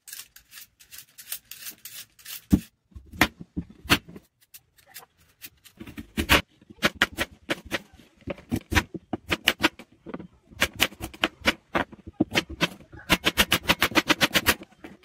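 Raw vegetable prep: a Y-peeler scraping strips off a carrot, then crisp knife cuts and taps on a cutting board, ending in a fast run of chef's-knife strokes slicing a carrot, several a second.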